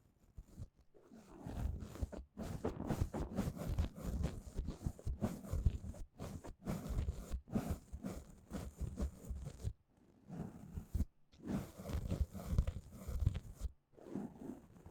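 Fluffy ear-cleaner brushing and rubbing in an ear close to the microphone: a dense scratchy rustle with a deep rumble, in two long stretches with a short pause about ten seconds in.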